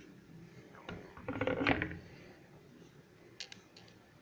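Small hard objects being handled on a workbench: a short run of clicks and rattles about a second and a half in, then a few faint ticks near the end.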